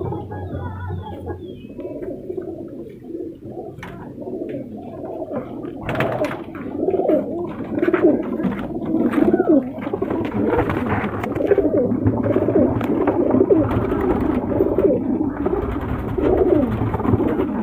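Sherazi pigeons in a breeding loft cooing, many birds at once with overlapping calls, getting louder about six seconds in, with scattered short clicks and rustles among them.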